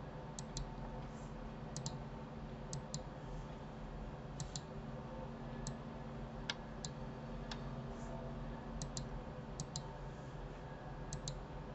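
Light clicks of a computer mouse and keyboard being worked, mostly in quick pairs a second or two apart, over a faint steady electrical hum.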